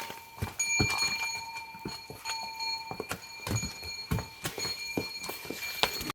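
A small bell ringing off and on in stretches of a second or two, over a run of irregular knocks and clicks.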